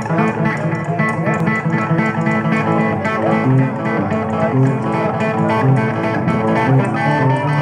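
Rockabilly band playing live: a hollow-body electric guitar over a steady drum beat from a standing drum kit.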